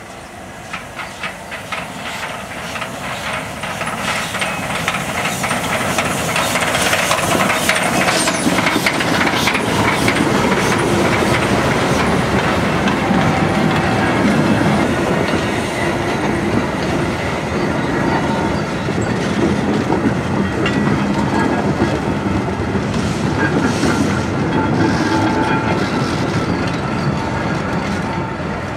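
Steam locomotive approaching with a regular beat of sharp exhaust chuffs that grows louder over the first few seconds. It passes close, and its train of old wooden coaches follows, rattling and clacking over the rail joints.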